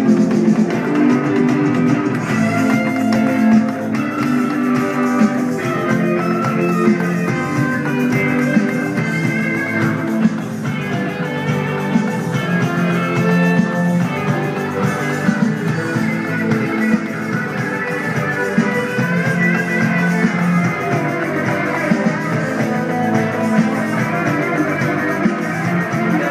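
Live band playing, with guitar to the fore.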